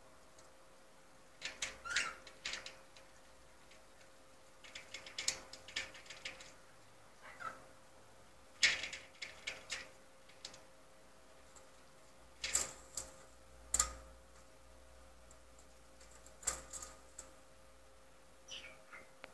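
A cockatiel clambering on the metal rail of a window blind, its claws and beak clicking and rattling against it in irregular bursts every few seconds, with a couple of short falling chirps.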